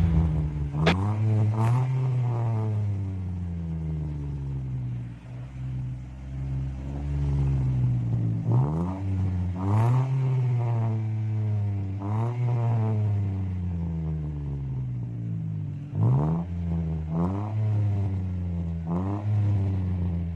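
Mitsubishi Mirage G4's three-cylinder engine idling through an aftermarket Power Flow size 5 muffler and exhaust, blipped about a dozen times. Each blip makes the pitch climb quickly and sink back to idle, some singly and some in quick pairs.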